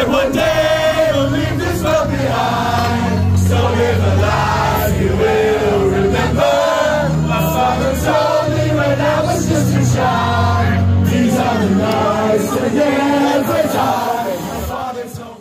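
Party singalong: a man singing into a microphone over loud amplified backing music, with a crowd singing and shouting along.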